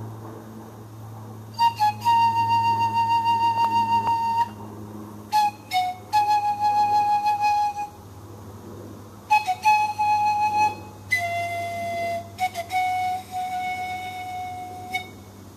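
Pan pipes played in four slow phrases: each opens with a few quick short notes and settles on a long held note, the last phrase sitting lowest.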